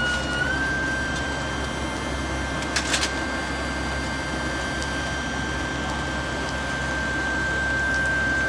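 Steady high-pitched turbine whine over a rushing hiss from a parked ATR 72 turboprop airliner with its propellers stopped; the whine steps up slightly in pitch about half a second in. Two brief clicks about three seconds in.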